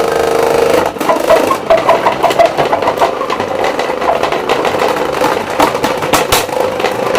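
Small electric motor running with a steady whine, joined from about a second in by rapid plastic clicking and knocking.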